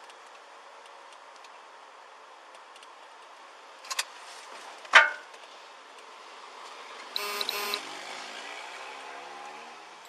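Steady road noise inside a moving patrol car's cabin. A couple of sharp clicks come about four seconds in, a louder knock follows a second later, and a brief pulsing tone sounds near seven seconds.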